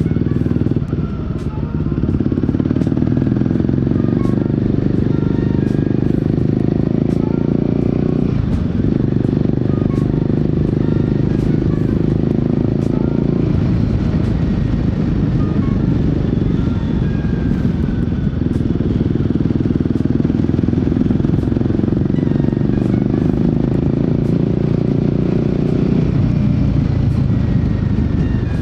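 Royal Enfield Guerrilla 450's single-cylinder engine and exhaust running under way at steady throttle, with brief let-offs or gear changes about a second in, around 8 and 13 seconds in, and near the end.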